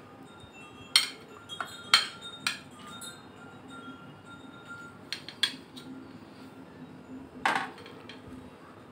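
White plastic serving spoon knocking against a serving bowl of halwa: a handful of sharp clinks, the loudest about one and two seconds in, and one more near the end with a short ring.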